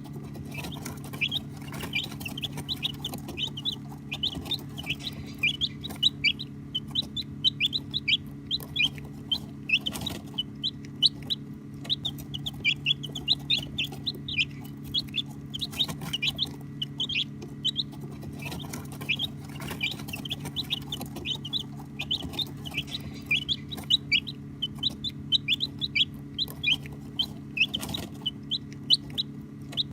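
A brood of baby chicks peeping continuously: a dense stream of short, high chirps, many birds calling over one another, over a steady low hum.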